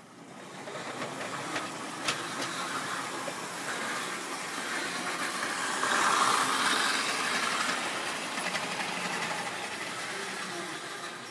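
Model railway train running on the track: a whirring electric motor and wheels rolling over the rails with faint clicks. It grows louder to a peak about six seconds in, then fades.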